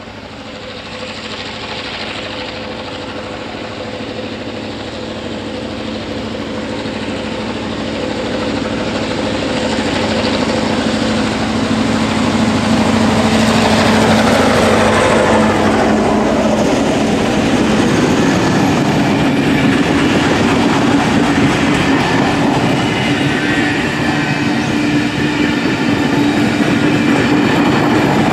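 Passenger train passing, led by diesel-electric locomotive 4204. Its engine grows louder as it approaches and drops in pitch as it goes by about halfway through. The carriages then follow with wheels clattering over the rail joints.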